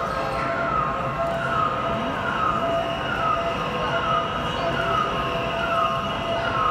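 Overhead crane's electronic warning alarm sounding while the crane carries a lifted railcar body: a short falling tone repeated evenly, a little more often than once a second, over a steady hum.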